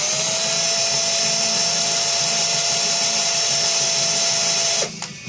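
Small electric drill spinning up and running steadily at high speed with a high whine, drilling out the rivet post of a diecast toy car. It stops near the end.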